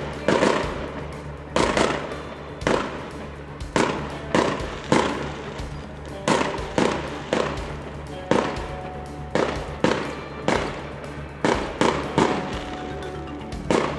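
Aerial fireworks bursting in a steady series of sharp bangs, about one a second, each dying away quickly. Background music plays throughout.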